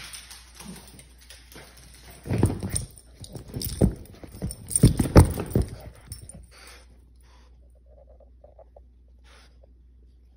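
A Boston terrier's paws thud on the floor and the leather couch as it runs back with a plush toy and jumps up, in a burst of heavy thumps and scuffles from about two to five and a half seconds in. After that come only faint small rustles as it mouths the toy.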